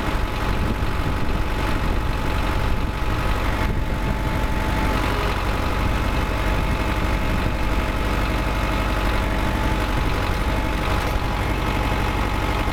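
MTZ-82.1 (Belarus) tractor's diesel engine running steadily with the power take-off (PTO) turning, a few steady tones riding over the engine's drone.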